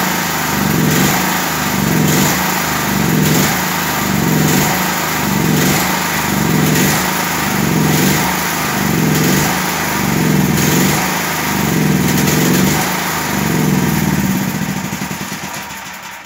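Grip 5.5 kVA generator's 13 hp single-cylinder petrol engine running on the last fuel in its carburettor with the fuel valve closed, its note swelling and falling in a regular beat about once a second. Near the end it winds down and stops as the carburettor runs dry.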